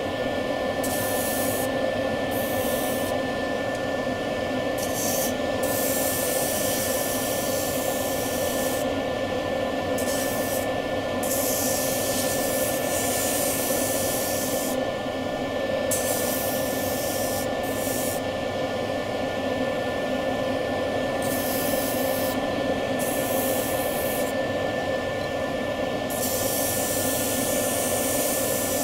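Sanding disc on a Vicmarc wood lathe running with a steady motor hum, while a juniper spatula blank is pressed against the abrasive in repeated short passes. Each pass brings a hissing rasp that starts and stops every second or two.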